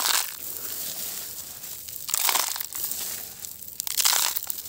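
Handfuls of gravel and soil poured into the plastic bed of a toy dump truck, rattling and crunching as the stones land. Three pours, about two seconds apart.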